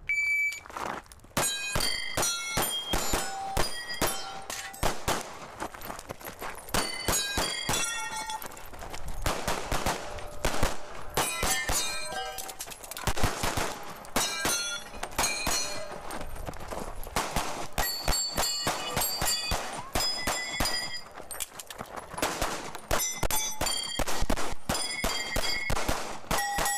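A shot-timer beep, then a pistol fired in quick strings of shots throughout a timed practical-shooting stage, with short gaps as the shooter moves between positions. Many shots are followed by the ring of steel targets being hit.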